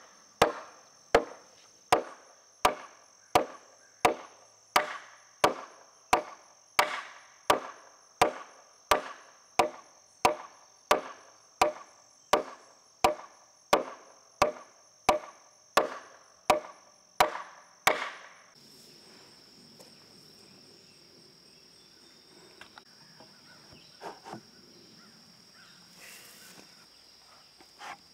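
Wood struck in steady, evenly spaced blows, a little more than one a second, which stop about 18 seconds in. Behind them insects buzz steadily, and this buzz carries on alone after the blows end.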